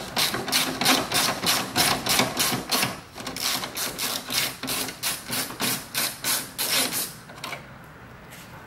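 Ratchet wrench clicking in a quick, even run, about four or five clicks a second, as a 10 mm bolt is backed out; the clicking stops about seven and a half seconds in.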